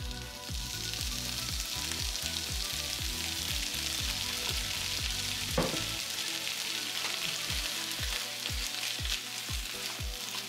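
Shredded chicken, corn and beans with salsa sizzling steadily in a hot frying pan, stirred with a silicone spatula near the end, with one sharp knock about halfway through. A steady beat of background music thumps underneath.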